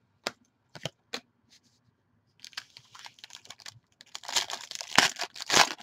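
Foil wrapper of a Panini Prizm basketball jumbo card pack being torn open by hand. A few light taps come first, then from about two and a half seconds in the foil crinkles, and the loudest ripping and crackling comes near the end.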